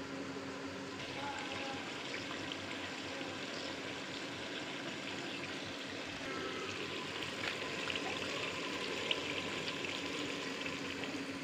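Tomato and spice masala sizzling and bubbling in a metal cooking pot: a steady hiss full of small crackles, a little louder from about a second in.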